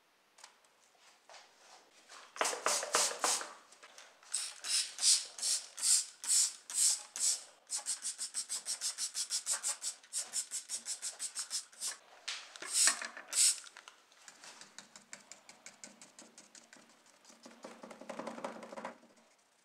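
Cleaner being sprayed onto a rusty model car body in an aluminium foil tray and foamed over it, then worked in with a brush: sharp hissing strokes start about two seconds in, with a fast even run of about five a second in the middle and a softer, duller scrubbing near the end.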